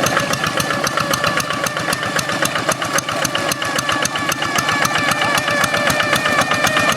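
Blue Kubota single-cylinder diesel engine on a hand tractor running steadily, a rapid even chugging of firing beats with a wavering whine, the "ngiung ngiung", riding over it.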